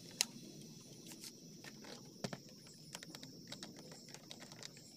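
PVC pipe pieces being handled and pushed together: scattered faint plastic clicks and taps, with one sharper click a little past two seconds in.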